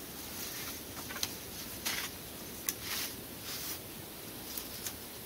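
Wooden sticks knocking and rustling as they are handled and propped against a stick lean-to shelter: a scattered run of short clicks and scrapes over a steady background hiss.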